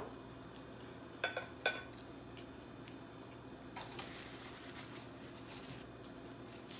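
Two quick clinks of a metal fork against a glass bowl about a second in, the second ringing briefly, followed by soft chewing sounds.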